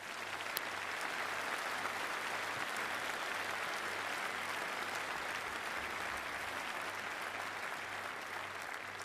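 A large audience applauding: dense, steady clapping that starts at once and eases off a little near the end.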